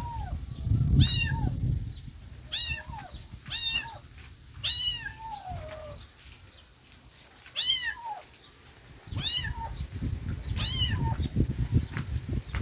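Kitten meowing repeatedly, about eight short, high-pitched meows that rise and fall in pitch, with a pause of a couple of seconds in the middle. Low rumbling noise sits underneath at times.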